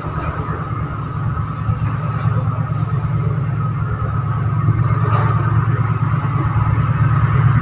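An engine running steadily, a deep rumble with a steady higher tone above it, growing gradually louder.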